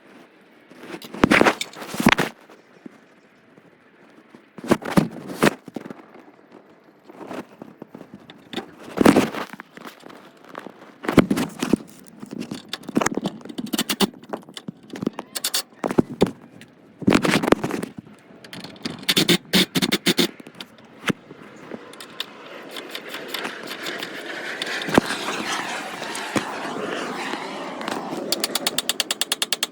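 Tool work on metal car parts: irregular bursts of scraping and clanking. Near the end comes a fast, even run of clicks.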